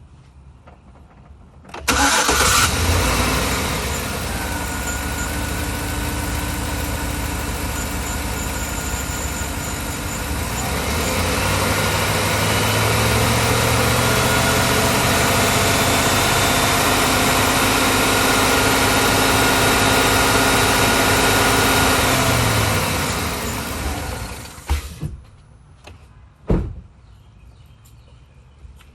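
A 2013 Chevrolet Silverado's 5.3-litre V8 starts about two seconds in and idles. It gets louder from about ten seconds in and is shut off near the end, followed by two short knocks. The engine has a misfire on cylinder 8, which the owner says has not yet set a code.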